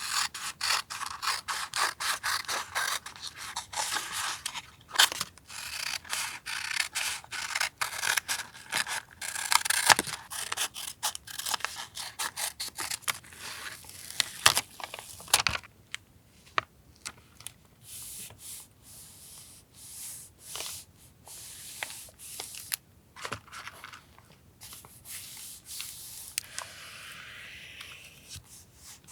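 Paper being cut with scissors and handled: crisp snips and paper rustles, dense for about the first fifteen seconds, then sparser with occasional soft rubbing and taps.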